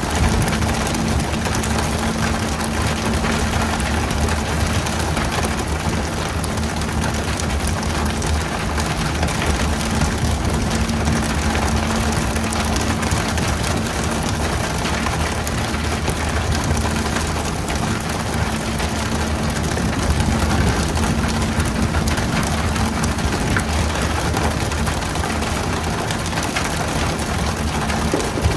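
Fishing boat's engine running steadily, a constant low drone under a steady hiss of rushing water.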